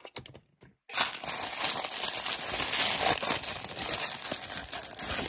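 Thin printed paper crinkling and rustling continuously as it is handled and unwrapped between the fingers. It starts about a second in, after a few light clicks.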